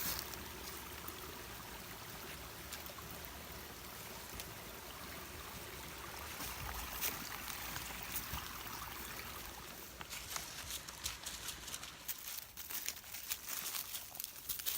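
A steady rush of running water from a small stream. About ten seconds in, footsteps crunching on the trail come in as a run of quick irregular clicks.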